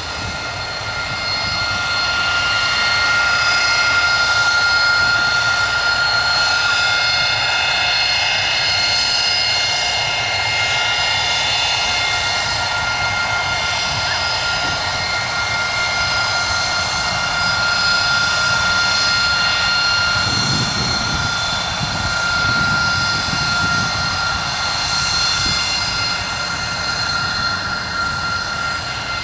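Harrier jump jet's turbofan engine running at high power, a loud steady jet whine with several high tones over a rushing noise that swells over the first couple of seconds. A deeper rumble joins about two-thirds of the way through.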